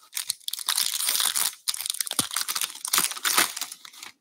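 Crinkly wrapper of a 2023 Bowman Baseball hobby card pack being torn open by hand: a dense crackle with a short break partway through, stopping abruptly near the end.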